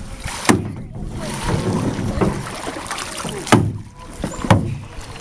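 Canoe being paddled: water swishing, with three sharp knocks of the paddle against the hull, one about half a second in and two more about a second apart later on.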